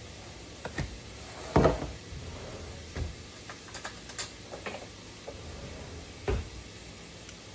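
Kitchen handling sounds: scattered clicks and knocks of a container, lid and utensils being picked up and set down, the loudest about one and a half seconds in and another near the end, over a faint steady hiss.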